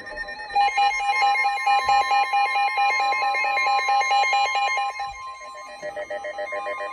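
Emergency Alert System alarm tone, sounding ahead of a severe thunderstorm warning: a loud, steady high electronic tone with a second, rapidly pulsing tone joining it about half a second in.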